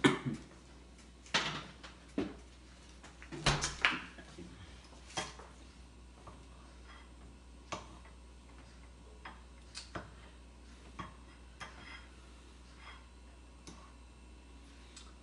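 Kitchen clatter: a few louder knocks and clinks of dishes in the first four seconds, then a fork tapping and scraping on a ceramic plate in small, sparse clicks about once a second as a slice of cake is cut and eaten.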